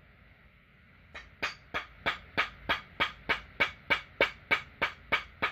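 Red soft-faced mallet tapping a crankshaft and its greased main bearing into a McCulloch 101B engine block: a steady run of light, evenly spaced knocks, about three a second, starting about a second in. The bearing is seating slowly and straight in its bore.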